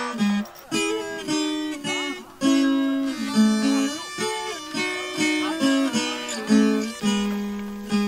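Background music: a solo plucked acoustic string instrument picking a melody, each note struck and ringing out, with some notes sliding in pitch.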